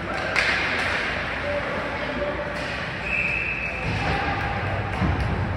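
Ice hockey play in an arena: a sharp knock about a third of a second in, like a puck or stick striking the boards, over steady rink noise with scattered shouts and a brief high call near the middle.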